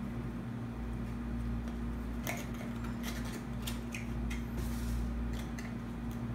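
Small cardboard box being worked open by hand, its seal peeled and flaps pulled, giving a run of light scratchy clicks and rustles that starts about two seconds in, over a steady low hum.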